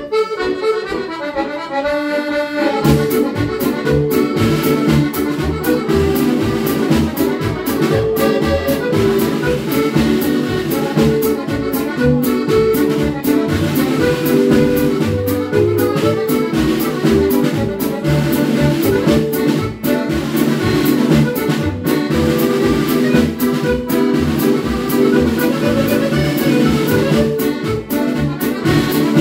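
Two piano accordions playing a tune together. They start alone, and a snare drum played with sticks joins about three seconds in, keeping a steady beat.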